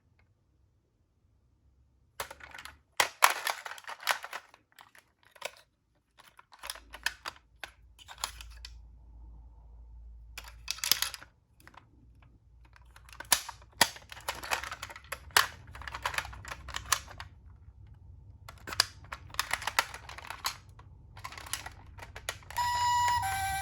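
Irregular bursts of light clicking and rattling from a small plastic toy car being handled and moved. About a second before the end, a two-tone ambulance siren starts, alternating between a higher and a lower note.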